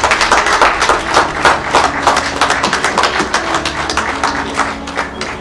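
A small group clapping their hands in applause, the dense claps thinning out near the end.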